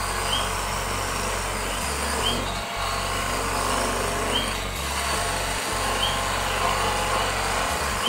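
Small wood lathe running steadily while a hand-held turning tool cuts the spinning wood.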